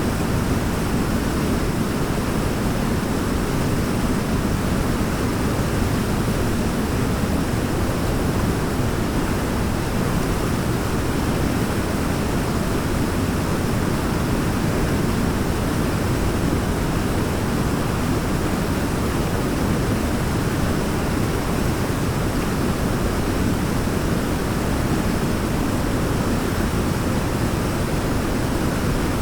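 Waterfall: a steady, unbroken rush of falling water, heaviest in the low range.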